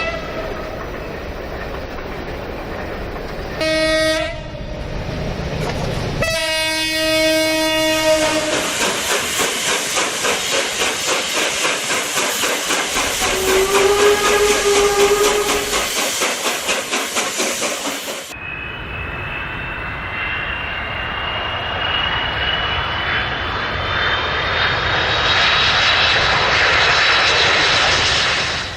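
Train horn sounding a short blast and then a longer one, followed by the rhythmic clickety-clack of train wheels passing over rail joints. About two-thirds of the way through, the sound changes abruptly to a steady rush with a slowly rising whine.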